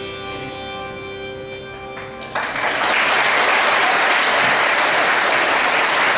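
The song's last chord rings out and fades, then an audience breaks into applause about two seconds in and keeps clapping loudly.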